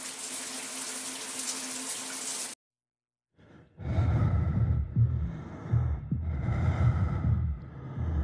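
Shower water spraying as a steady hiss that cuts off abruptly about two and a half seconds in. After a second of silence come loud, rough, low rasping swells about a second apart.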